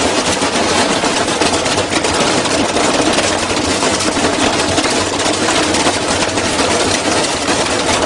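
Front-loading washing machine spinning out of balance and shaking itself apart: a loud, continuous rapid rattling and banging of the loosening sheet-metal casing and drum.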